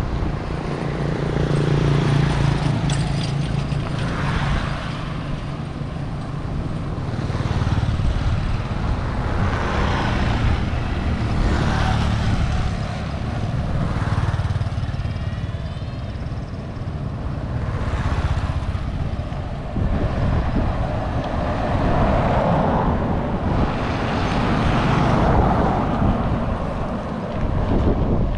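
Wind buffeting the camera's microphone in gusts, with the engines of motor vehicles passing on the road.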